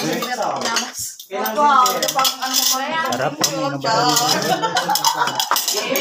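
Spoons and serving utensils clinking against plates and pots as a shared meal is served, over several people talking at once.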